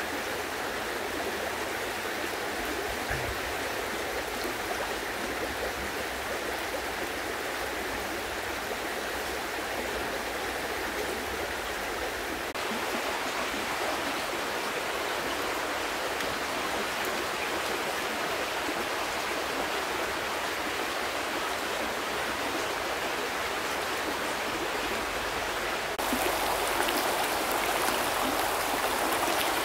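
Steady rushing of water with no clear drops or clicks, a little louder about halfway through and louder again near the end.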